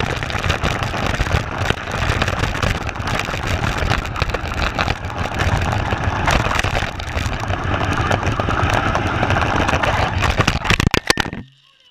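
RC car driving over asphalt, heard from a camera mounted on the car itself: a steady rough rumble and rattle of tyres, motor and chassis. Near the end comes a run of sharp knocks, then the sound cuts off abruptly.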